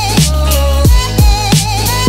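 Background music: a beat with heavy bass-drum hits about every half second under a wavering, held melody line.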